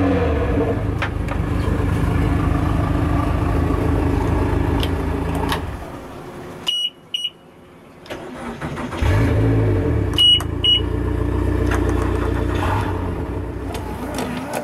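Honda outboard engines running steadily, then stopping about six seconds in. Two short high beeps follow as the key is turned. An engine is restarted about nine seconds in, with two more beeps, and settles into a steady idle.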